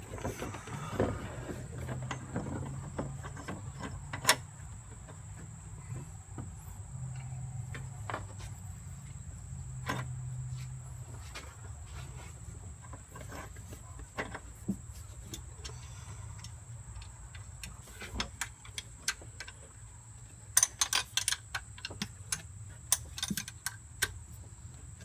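Scattered metallic clicks and taps as the cooling fan and fan clutch are worked back into place in a truck's engine bay and the mounting nuts are started by hand, with a quick run of clicks near the end.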